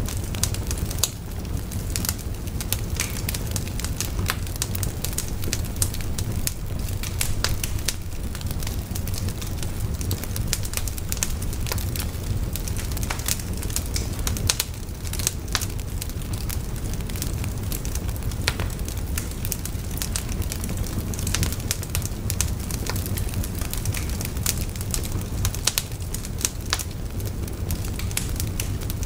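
Wood fire burning, with frequent sharp crackles and pops from the burning logs over a steady low rumble of the flames.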